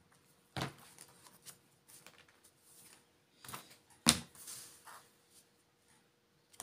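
A plastic letter-stencil ruler and card being handled on a tabletop while lettering with a felt pen: a few sharp taps and clicks, the loudest about four seconds in, with faint rustling and scratching between.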